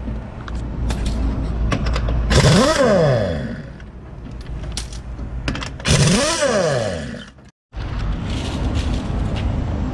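Electric impact wrench spinning wheel nuts off a truck's wheel, its motor pitch rising and then falling twice, with metallic clinks of loose nuts between.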